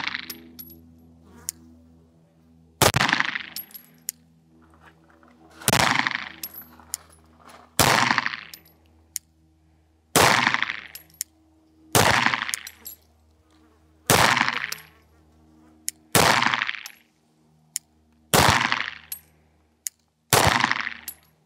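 About ten shots from a Springfield Prodigy 1911 DS pistol, fired slowly and evenly, one about every two seconds, each trailing off in a short echo.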